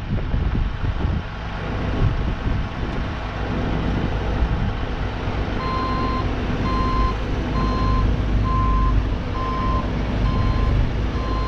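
Diesel machinery running with a low, steady rumble. About five and a half seconds in, a vehicle backup alarm starts beeping at an even pace, a little faster than once a second, as the mini excavator is loaded onto the tilted rollback truck bed.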